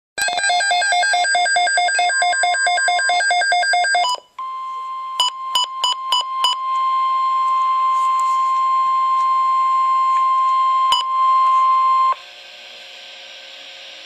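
Weather radio receiver sounding an alert: rapid pulsing multi-tone beeps for about four seconds, then the steady 1050 Hz NOAA Weather Radio warning alarm tone for about eight seconds, broken by a few short clicks. The tone stops about twelve seconds in, leaving a faint hiss, and signals that a severe thunderstorm watch message is about to be read.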